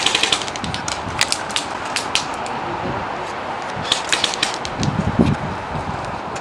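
Airsoft guns firing: sharp pops and clicks, single shots and short rapid strings, over a low bed of rustling handling noise.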